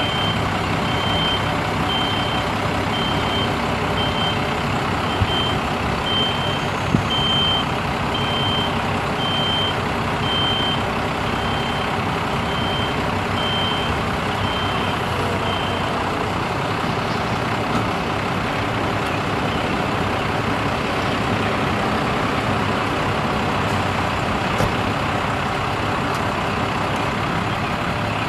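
Diesel engine of a 1996 Freightliner FL70 digger derrick truck, a Cummins ISB 5.9 L straight-six, running steadily to drive the hydraulics as the Altec boom is raised. A high warning beep repeats about once a second, stopping about two-thirds of the way through.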